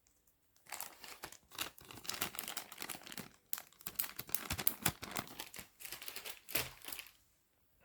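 Plastic bag of finger cots crinkling as it is handled, in irregular rustles and crackles for about six seconds.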